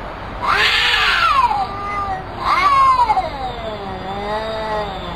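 Domestic cats yowling at each other in a standoff: two loud, wavering yowls that bend up and down in pitch, about half a second and two and a half seconds in, followed by a lower, wavering drawn-out call.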